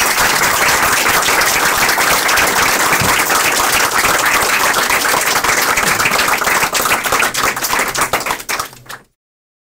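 A small audience clapping and applauding, a dense patter of many hands, fading and cutting off near the end.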